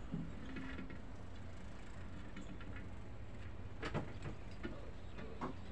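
Metal chain clanking against the steel net drum of a fishing trawler as the crew handle it: a few sharp knocks, the loudest about four seconds in and another near the end, over a steady low machine hum.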